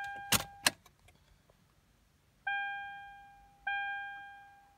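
Toyota 4Runner's warning chime: a single bell-like ding repeating about every 1.2 s, each fading away. Two sharp clicks come about half a second in, the chime breaks off, and the dings start again about two and a half seconds in.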